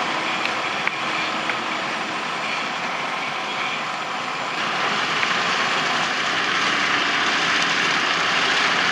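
Tractor engine and tractor-drawn potato harvester running with a steady mechanical noise, growing louder about halfway through.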